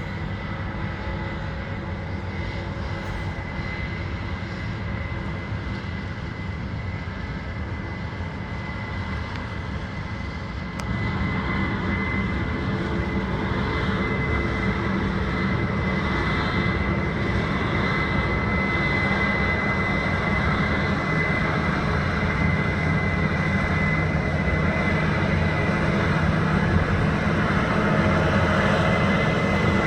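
Combine harvester running steadily while harvesting soybeans, a constant high whine over a heavy low rumble. It gets louder about eleven seconds in and stays at that level.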